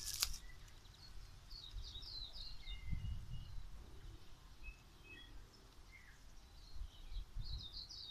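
Small birds twittering in quick runs of short high chirps, twice, with a few single whistled notes between. Under them runs an uneven low rumble, and a sharp click sounds right at the start.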